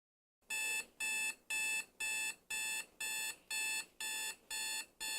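Electronic alarm clock beeping, about two beeps a second, starting about half a second in.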